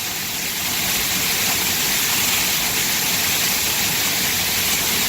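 Waterfall roaring close by: a steady, loud rush of falling water with no break or change.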